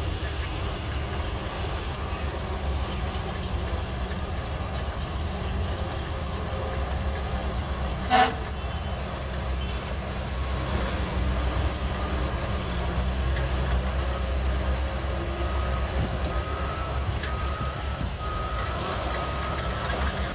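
Shantui DH17C3 Pro bulldozer working: a steady low diesel engine drone with track running noise, broken by one sharp, loud clank about eight seconds in.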